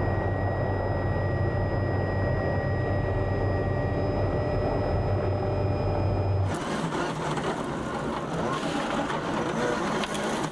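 A 1997 World Rally Car's engine holding a steady low drone with a faint thin whine. About six and a half seconds in the sound cuts abruptly to a rougher, noisier stretch of rally car running.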